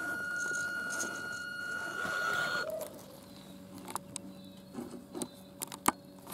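Electric Axial Wraith 1.9 RC rock racer crawling slowly through loose dirt, its motor and gears making a steady high whine over low grinding. The whine cuts off abruptly after about two and a half seconds, leaving a quieter background with a few sharp clicks.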